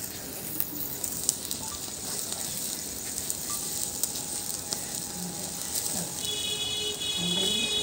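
Skewered chicken sizzling over an open wood-and-charcoal fire in a trough grill, the fire crackling with scattered sharp pops. A steady high-pitched tone joins about six seconds in.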